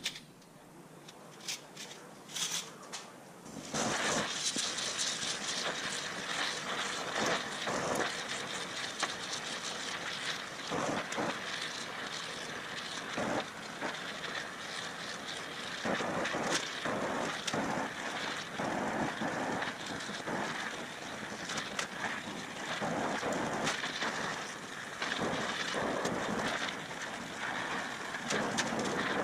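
A few faint taps, then from about four seconds in a gas torch hisses steadily, with an irregular crackle, as it heats an aluminium gas cap for brazing with low-temperature aluminium rod.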